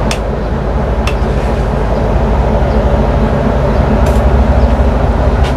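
Steady low mechanical rumble inside the bus cabin, broken by a few short sharp clicks. The first click, right at the start, is a wall light switch being pressed.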